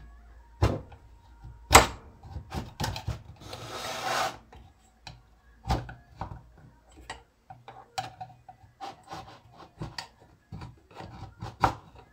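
Old gasket material being scraped by hand off the metal mating face of a chainsaw crankcase: irregular short scrapes and light tool clicks, with one longer rasping scrape about four seconds in.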